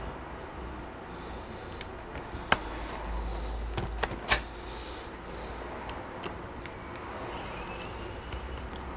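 A few sharp knocks and small clicks from a laptop being handled on a bench mat, the two loudest about two and a half and four seconds in, over a steady low hum.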